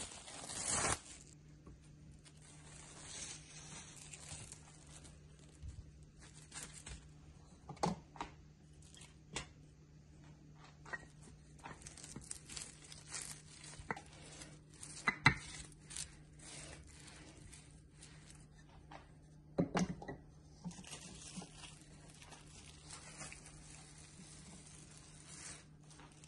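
Plastic cling film being peeled off rolled-out tart dough and handled, crinkling and crackling. A loud rustle of film in the first second, then quieter scattered crackles with a few sharper snaps.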